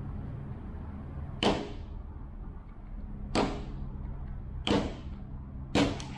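Four sharp metallic clacks, each with a brief ring, spaced a second or two apart: steel screwdrivers levering the carrier bearing off a Can-Am SmartLok front differential carrier.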